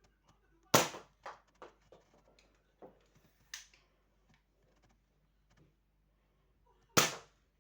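Toy gun firing twice: two sharp, loud shots about six seconds apart, each followed by a few quieter clicks and rattles.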